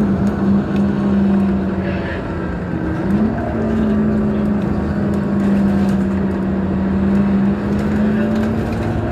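Scania K230UB city bus heard from inside the passenger cabin while driving: the diesel engine and ZF automatic gearbox give a steady low drone over road noise. The drone steps up in pitch about three seconds in, then slowly falls.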